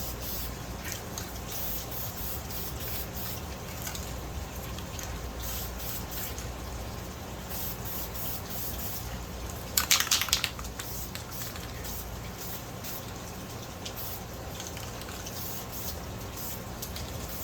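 Air filter oil sprayed onto a foam air filter in one short hiss about ten seconds in, over a steady low hum and faint crackling.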